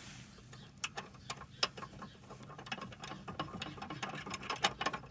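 Irregular sharp metal clicks and taps of a spanner working the nut on a car battery's hold-down clamp as it is tightened.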